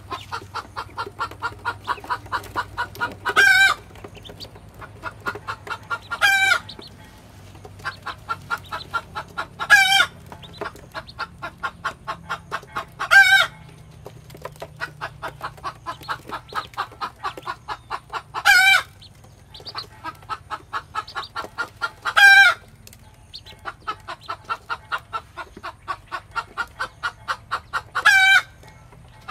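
A hen clucking in a fast, even run of about four clucks a second. Every three to six seconds a louder, longer call breaks in, seven times in all.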